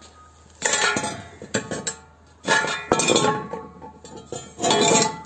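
Steel void-former cores for a concrete block machine mould clinking and clanging against each other as they are handled, in three bursts about two seconds apart, each with a short metallic ring.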